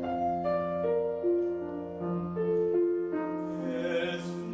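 Slow classical piano music, one held note or chord after another.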